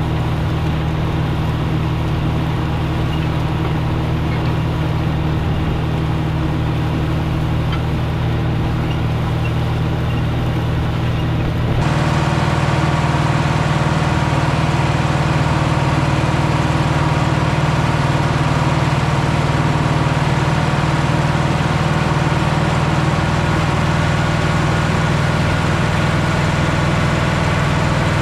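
Caterpillar 3208 V8 diesel in a White 4-225 four-wheel-drive tractor, running steadily under load while pulling a disc through corn stubble. About twelve seconds in, the engine gets louder and brighter.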